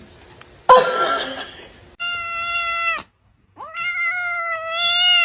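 A cat yowling: a sudden harsh burst about a second in, then two long, drawn-out meows held at a steady pitch, each cut off abruptly.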